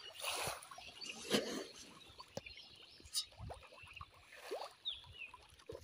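Fish feed pellets scattered by hand onto a tilapia pond, pattering onto the water with small splashes in several short irregular bursts.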